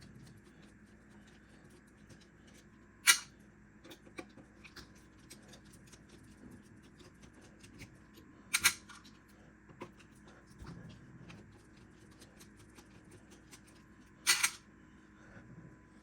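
Screwdriver working screws out of a KitchenAid Artisan mixer's housing: scattered small clicks and ticks of metal on metal, with three sharp clinks about five to six seconds apart.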